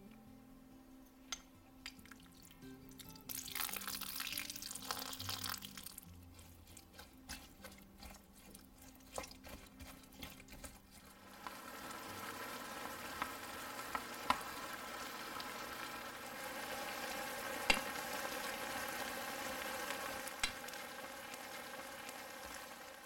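Food sizzling in a hot pan, with a few utensil clicks and knocks. A short burst of hissing comes about three seconds in, and a steady sizzle settles in from about halfway.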